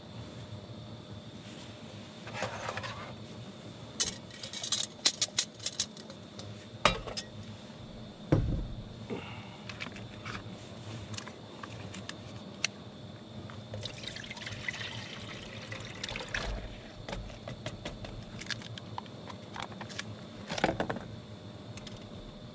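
Light clicks and clatters of things being handled, a dull thump about eight seconds in, and liquid being poured.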